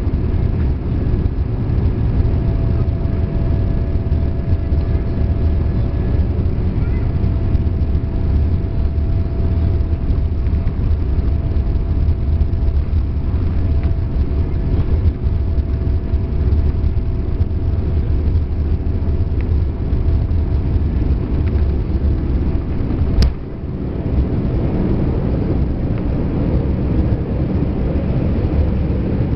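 Steady low rumble of a moving vehicle or aircraft cabin, with a faint steady whine over it. A single sharp click about 23 seconds in, followed by a brief dip in the noise.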